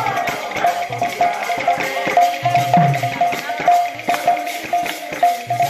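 Sambalpuri kirtan music: a hand-played barrel drum gives deep strokes that drop in pitch, over a quickly repeating short high note and jingling percussion.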